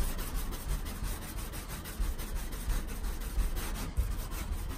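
A detailing clay bar rubbed back and forth over a wet Lexan car window, a steady rubbing drag as the clay picks up the contamination bonded to the old, cloudy plastic.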